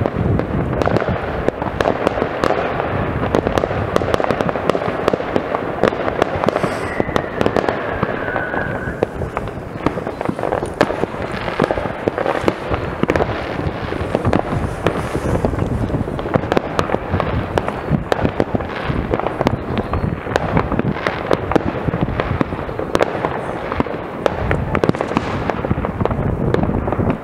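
Many fireworks going off at once, a constant run of overlapping bangs and crackles, with a short falling whistle about seven seconds in.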